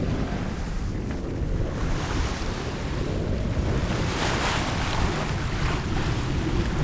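Strong wind buffeting the microphone over the rush of waves and water past a sailboat under sail, the water noise swelling about four seconds in.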